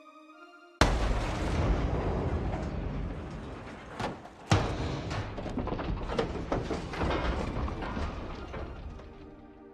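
Cinematic impact sound effect: a sudden heavy boom about a second in, followed by a long crackling rumble with two more sharp hits a few seconds later, slowly dying away.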